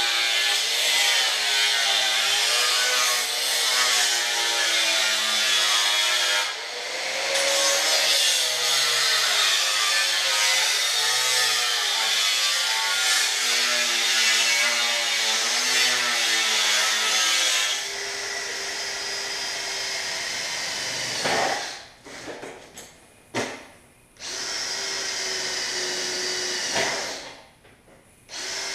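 Angle grinder cutting through the sheet steel of a replacement quarter panel, its pitch wavering as the load changes, with a short break about six and a half seconds in. From about eighteen seconds a quieter, steadier-pitched electric drill runs in short spells, drilling out spot welds, with a few stops near the end.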